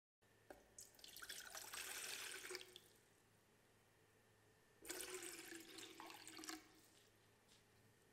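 Water poured into a stainless steel saucepan in two pours of about two seconds each, a couple of seconds apart.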